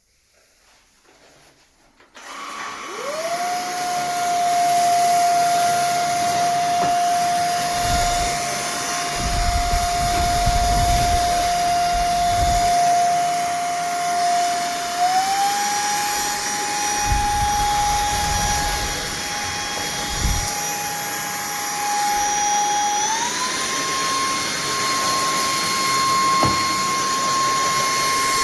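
Cordless stick vacuum cleaner's motor switching on about two seconds in, spinning up to a steady high whine. The whine steps up in pitch twice as the motor speeds up, with low thumps from the cleaner working the floor.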